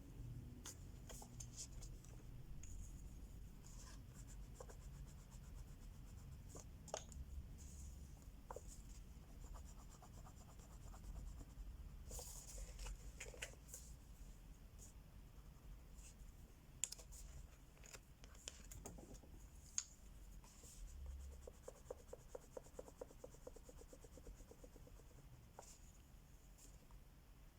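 Crayola wax crayon scratching back and forth on a colouring-book page, faint and steady, with a few small clicks.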